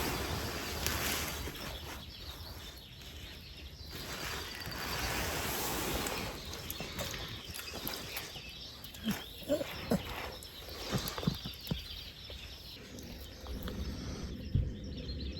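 Outdoor ambience: a rushing noise that swells and fades, with a few short chirps and clicks between about nine and twelve seconds in, and a low thump near the end.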